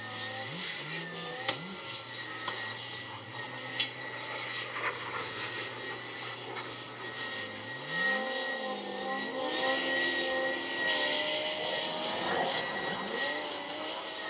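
Heavy diesel machinery working. The engines rise and fall in pitch as they rev, a steady high whine runs through it, and there is one sharp clank about four seconds in.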